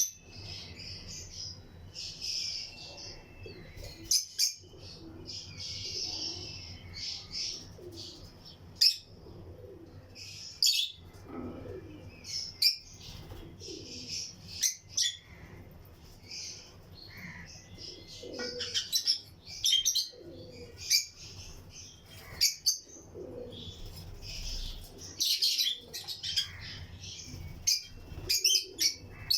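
A colony of lovebirds chirping: many short, shrill chirps and calls overlapping without pause, with scattered sharp clicks among them.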